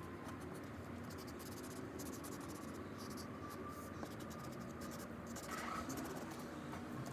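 Black marker drawing on paper: a run of short, irregular scratchy strokes.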